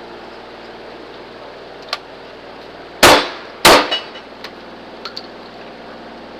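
Two gunshots fired about half a second apart during a cowboy action shooting stage, followed by a brief metallic ring. A few faint sharp clicks or distant target hits come before and after.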